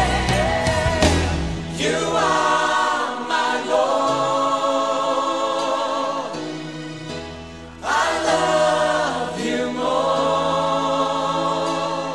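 Live worship song: a choir singing long held phrases over a band, with a brief dip between two phrases about seven and a half seconds in.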